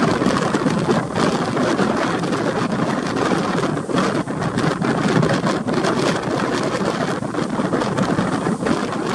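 Steady rushing noise of wind and sea aboard a passenger ship in rough weather, with wind buffeting the microphone.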